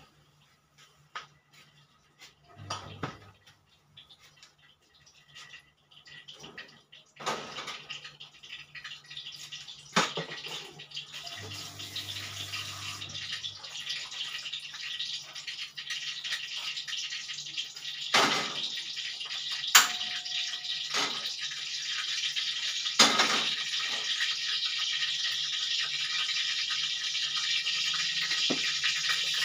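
Salted Spanish mackerel frying in oil in a wok: a sizzle that starts about seven seconds in and grows steadily louder, with a few sharp knocks against the pan.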